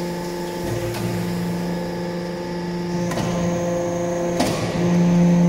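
Hydraulic chip briquetting press running: its motor and hydraulic pump hum at a steady pitch, growing louder for a stretch near the end. Three sharp knocks come through the hum, about a second in, about three seconds in, and between four and five seconds in.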